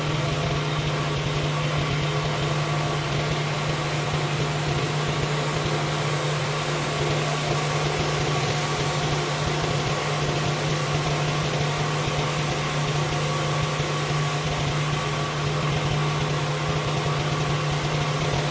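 Pressure washer running steadily: a constant engine hum under the even hiss of water spraying on the driveway.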